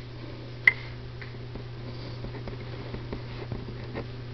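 Quiet room tone with a steady low hum, and one small click under a second in.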